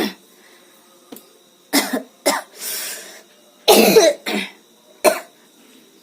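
A woman coughing: a fit of about six harsh coughs with a breath drawn in between, the loudest a little past halfway. The cough is from a chest cold that has left her voice hoarse.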